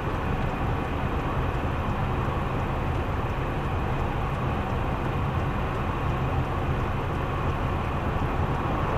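Steady low rumble inside a stationary car, picked up by its dashcam: the car's engine idling and traffic going by.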